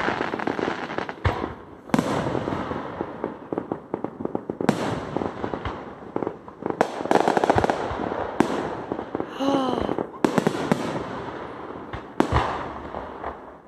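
Fireworks display: aerial shells bursting overhead with sharp reports at irregular intervals, and dense crackling between them.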